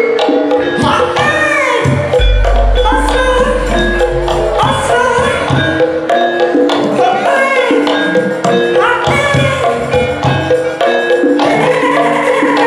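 Live gamelan-style accompaniment for a ketoprak stage dance: jingling metal percussion over pitched melody lines, some notes sliding up and down. A deep low boom comes in about two seconds in and fades out after about two seconds.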